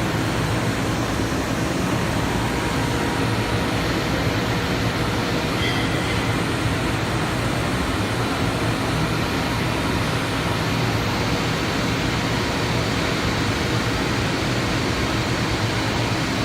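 Five-axis CNC portal machining centre running while milling a mould: a steady mechanical noise with a faint low hum.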